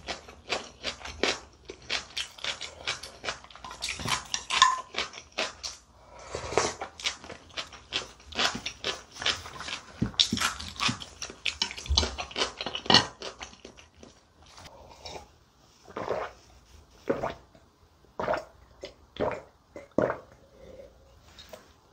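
Close-miked eating sounds: chewing a mouthful with quick, wet mouth clicks and smacks, thinning out about halfway through. Near the end a few separate swallows as she drinks from a glass.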